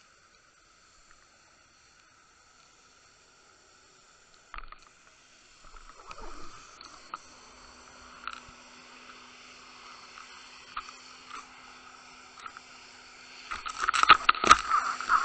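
Water noise picked up by an underwater camera's microphone: near silent at first, then a single knock and faint rushing with scattered clicks and a faint steady hum, building to louder crackling and rushing near the end.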